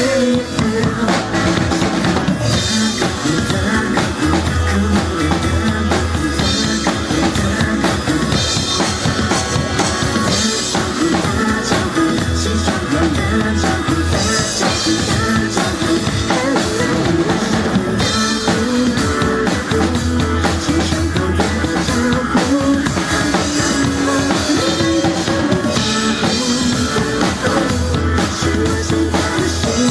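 Instrumental break of a Mandarin pop song: band music with a steady drum beat, bass and guitar, and no singing.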